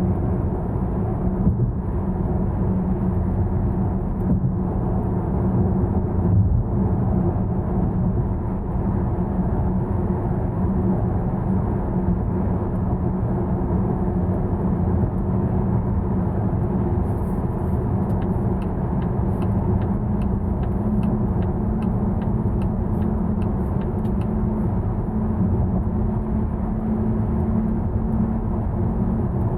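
Inside the cabin of a 2021 Volvo V90 plug-in hybrid cruising on the highway on electric power alone in Pure mode: a steady rumble of road and tyre noise. Midway a run of light, evenly spaced ticks, about two and a half a second, lasts some six seconds.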